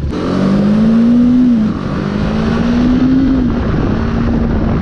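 BMW G 310 GS's single-cylinder engine accelerating through the gears: the pitch climbs, drops at an upshift about one and a half seconds in, climbs again to a second shift, then holds steady.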